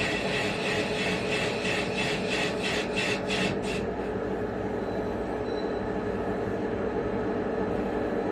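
Three-side CNC milling machine cutting a valve body: a rhythmic rasping of the cutters, about three strokes a second, stops about four seconds in, leaving the steady hum of the running machine.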